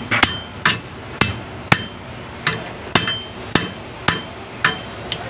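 Steel hand hammer striking the wheel-bearing end of a rear axle held in a vise, about ten blows at roughly two a second, each with a short metallic ring. The old axle bearing is being knocked off after its retaining collar was cut with a cutting disc rather than heated.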